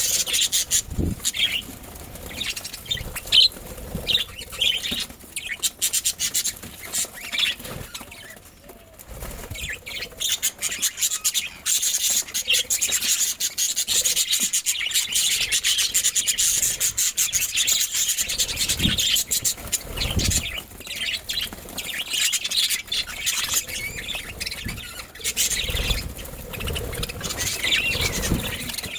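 Budgerigars chirping and chattering, mixed with many short scratching and rustling clicks.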